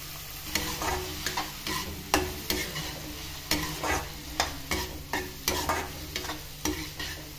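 Metal spatula scraping and stirring chopped tomatoes and onions around a hot metal kadhai, in quick repeated strokes about two or three a second from about half a second in, over a steady sizzle of frying.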